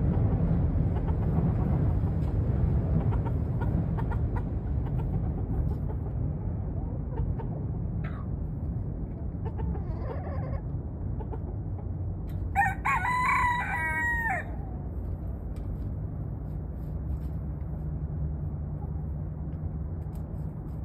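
A rooster crowing once, a call of about two seconds a little past halfway, heard over a steady low rumble.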